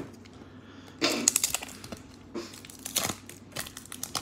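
A trading-card pack wrapper being handled and torn open, crinkling with sharp clicks and crackles, the first group about a second in and more around two and a half and three seconds.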